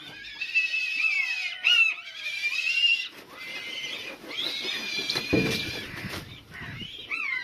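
Several captive buzzards calling at once: overlapping high, drawn-out whistling squeals and falling notes. A short burst of wing flapping comes a little past halfway.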